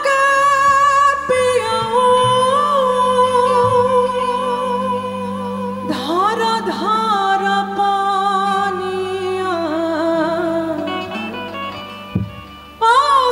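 Woman singing a Bhojpuri folk song live into a microphone: long, ornamented held notes with slides, over a steady low instrumental backing. The voice breaks off briefly near the end, then comes back in.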